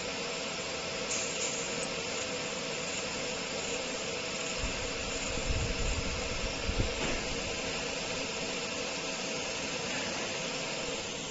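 A 60W fiber laser marking machine running: a steady fan-like hiss with a faint steady hum through it. A few low bumps come about five to seven seconds in.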